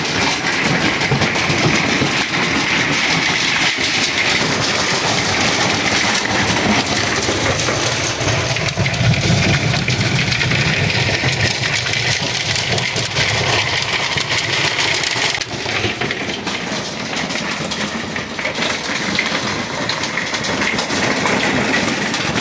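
Marble-sized hail and heavy rain pelting the roof of a fifth-wheel camper, heard from inside as a very loud, dense rush of countless small hits.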